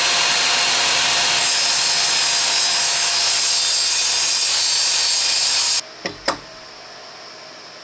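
Benchtop table saw running loud and steady while ripping a strip from a 1/8-inch hardboard panel. The saw noise cuts off suddenly about six seconds in, followed by two light knocks and quiet room tone.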